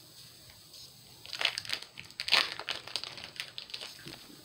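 Foil wrapper of a Pokémon card booster pack crinkling as it is torn open and the cards pulled out: a cluster of sharp rustles starting about a second and a half in, loudest just past the middle.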